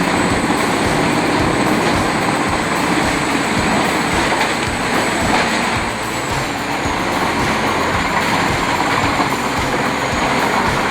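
Heavy wood-processing machine running under load: a loud, steady mechanical din with constant irregular low knocking and a faint high whine.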